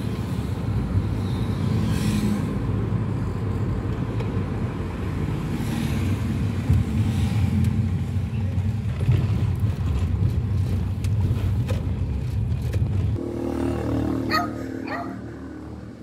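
Road and engine noise heard from inside a moving car: a steady low rumble. About three seconds before the end the rumble drops and changes, with a brief high squeak.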